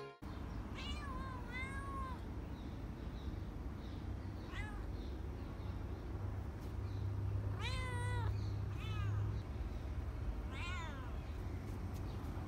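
Stray cats meowing, about six meows spread out with gaps between them, each rising and falling in pitch; the loudest comes a little past the middle. A steady low rumble sits underneath.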